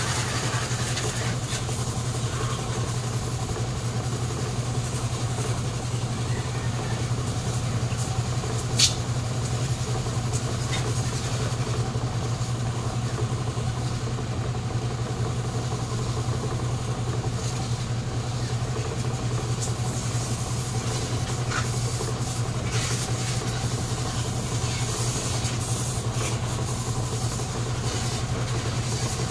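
An engine idling with a steady, unchanging low hum. A single sharp click comes about nine seconds in.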